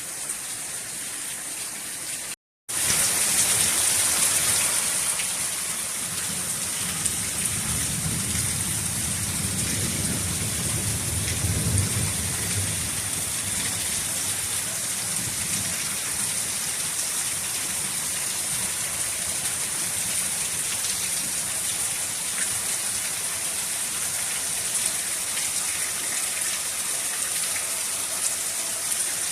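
Heavy rain pouring down steadily, cutting out to silence for a moment about two and a half seconds in and coming back louder. A low rumble swells and fades about ten seconds in.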